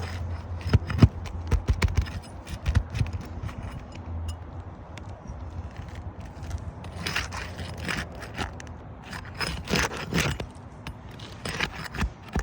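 Hand tool scraping and clicking against roof shingles in irregular clusters, as a wind-damaged shingle is worked loose for removal. A faint steady hum sits under the first few seconds.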